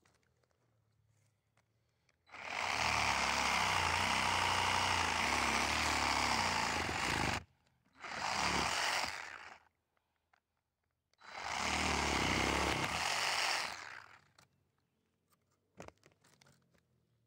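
Hychika 20V cordless reciprocating saw with a wood blade cutting through tree roots at ground level, in three runs: a long one of about five seconds, a short one, then another of about three seconds, with pauses between.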